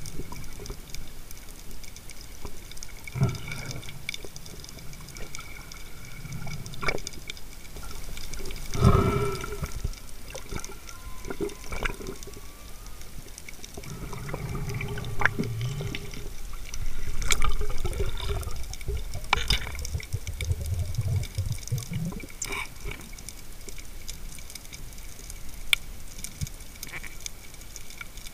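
Underwater sound picked up by a diver's camera in its housing: muffled swishing and rushing water as the spearfisher swims, with scattered clicks and knocks. The water noise comes in uneven swells and is loudest twice, about nine and seventeen seconds in.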